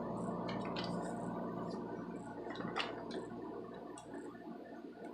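A few faint, scattered clicks and light handling noises over a steady low hum that fades toward the end.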